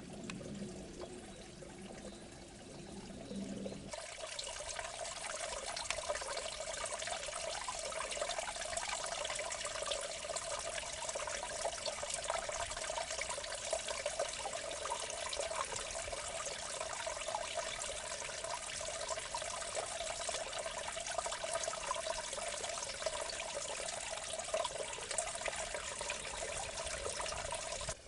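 Water trickling and gurgling steadily in a small irrigation ditch, growing louder about four seconds in.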